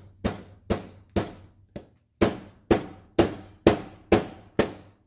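Mallet blows on the end of a CV shaft, about two a second, driving the shaft's inner splined joint into the differential to seat it.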